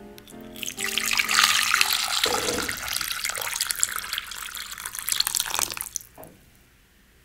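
Water poured from a jug into a glass bowl over two peaches, a steady splashing pour. It starts about half a second in and stops abruptly about six seconds in, with a small splash just after.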